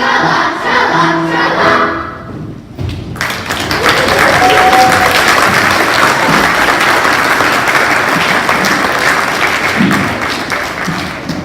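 Children's choir holding the last sung note of a song, then, about three seconds in, an audience applauding steadily for several seconds, fading near the end.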